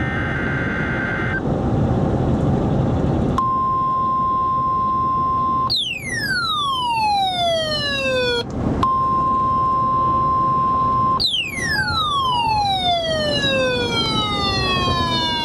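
Weather radio alert tone, a steady pure tone near 1 kHz, sounding twice for about two seconds each time after a stretch of radio hiss. Each time it breaks off into a falling whistle with many overtones. This is the warning alarm signal that announces a new warning on NOAA Weather Radio.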